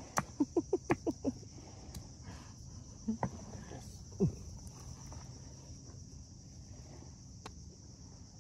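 Garlic being pounded with a pestle in a mortar: a quick run of about seven strikes, then a few single strikes. Insects chirr steadily underneath.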